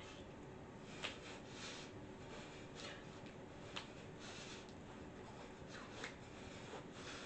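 Faint rustling and shuffling of a person dancing in a small room: clothing rubbing and feet moving on the floor, with short noisy breaths, a few light taps or clicks and a couple of brief squeaks.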